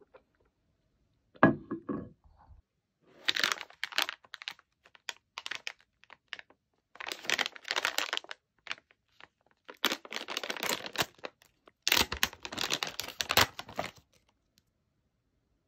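Snack packaging crinkling and tearing open in several bursts. A single dull thump comes first, about a second and a half in.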